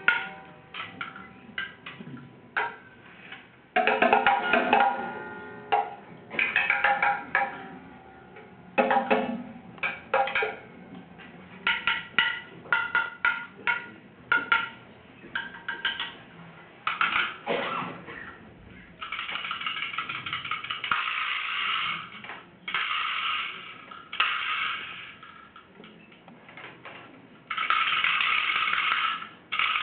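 Coat hangers clattering and clinking against metal clothes rails, struck and shaken irregularly as percussion, with short ringing knocks. It breaks into longer runs of fast, continuous rattling about two-thirds of the way in and again near the end.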